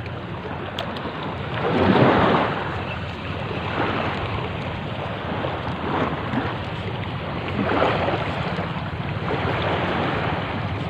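Wind blowing across the microphone over open sea water, a steady rushing noise that swells about every two seconds.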